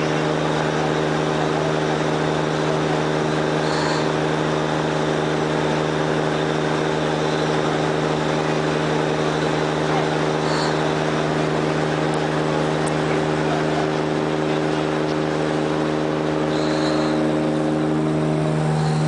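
Tugboat's marine diesel engine running steadily under load while towing, heard from on board as a constant, even drone.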